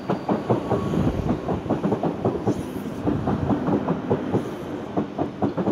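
Sydney Trains K-set double-deck electric train pulling into the platform close by, its wheels clacking in a rapid, uneven run over the rail joints above a steady rumble.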